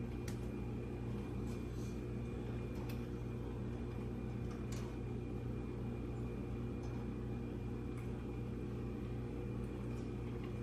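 Steady low mechanical hum with a faint thin high whine, and a few faint light clicks, about four over the stretch.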